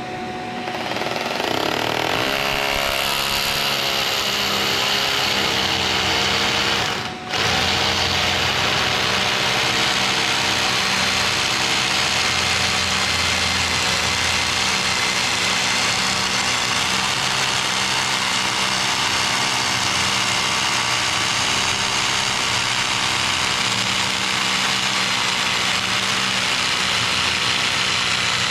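A machine running steadily with a constant hum, cut off briefly about seven seconds in, then running on.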